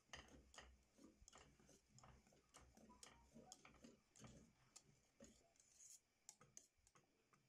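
Faint, irregular ticking, several clicks a second, from a wire whisk striking the sides and bottom of a stainless steel saucepan while crème pâtissière is whisked.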